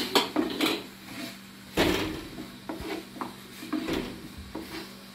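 Thin wooden rolling pin knocking and rolling on a round wooden board as flatbread dough is rolled out and turned: an uneven run of wooden knocks and clicks, the loudest about two seconds in.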